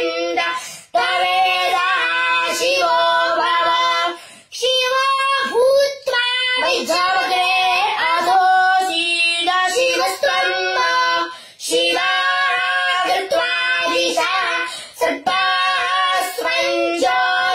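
A young boy chanting Vedic mantras in Sanskrit, in a high, clear voice on a few held pitches. He chants phrase after phrase, with short pauses for breath every few seconds.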